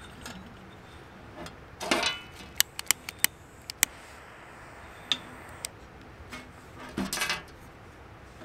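Metal clatter and a run of sharp clicks as the side-opening metal-and-glass housing of a small paraffin oil-lamp stove is opened and handled to light its wick. There is a clatter about two seconds in, quick clicks over the next two seconds, and another clatter about seven seconds in.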